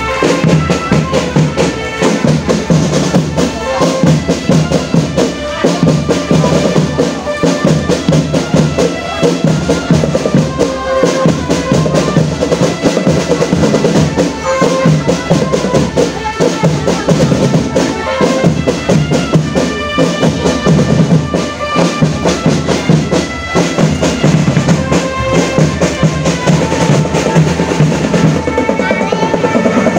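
Marching drum band playing: snare and bass drums beating steadily under a sustained melody line.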